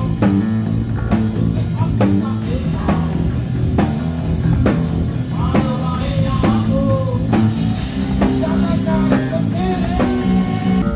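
Rock band playing live through a PA: a male singer sings over a drum kit keeping a steady beat, with guitars and bass underneath.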